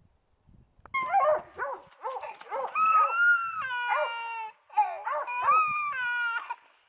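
A dog howling and whining: about a second in, a quick run of short rising-and-falling yips, then longer drawn-out howls that bend in pitch, with brief breaks between them.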